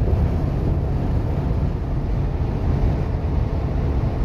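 Steady low rumble of road and wind noise inside a moving car's cabin.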